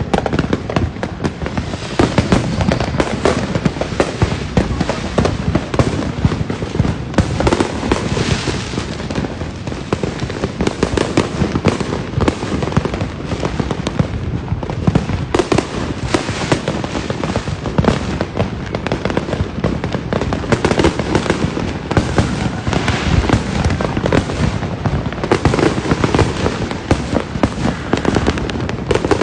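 A continuous barrage of fireworks and firecrackers: rapid, overlapping cracks and pops with no let-up.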